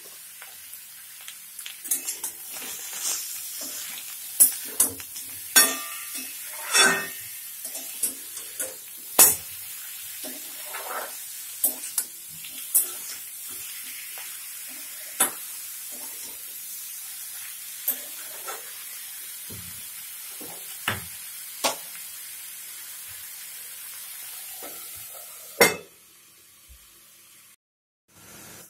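Sliced pointed gourd and potato frying in oil with turmeric and salt: a steady sizzle, with the utensil clicking and scraping against the pan as the vegetables are stirred. A louder knock comes near the end, then the sound cuts off.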